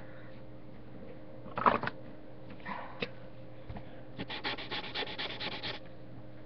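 Marker pen colouring on paper, with quick back-and-forth scratching strokes, about ten a second, for a second and a half in the second half. A single knock comes just under two seconds in, and a faint steady hum runs underneath.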